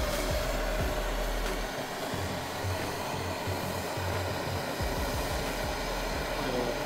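Handheld propane torch burning with a steady rushing hiss as its flame heats steel tubing so the tube can be bent by hand.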